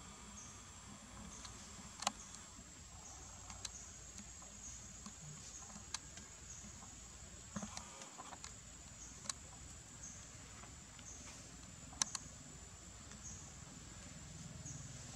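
Insects droning steadily at a high pitch, with a short chirp repeating about once a second. A few sharp light clicks break in, the clearest about two seconds in and again about twelve seconds in.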